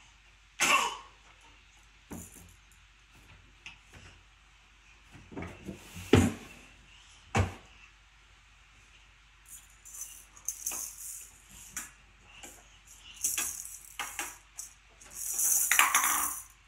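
Wooden and plastic toys knocking and clattering under a toddler's hands, a few sharp knocks in the first half, then several jingly rattling bursts, the longest near the end.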